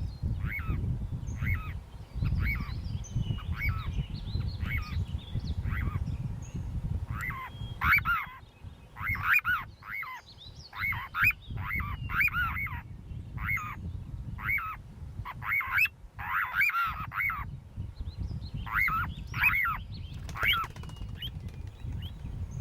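A flock of birds calling with repeated short, honking calls, at first spaced out and then coming thick and overlapping through the middle. A low rumble runs underneath, stronger in the first half.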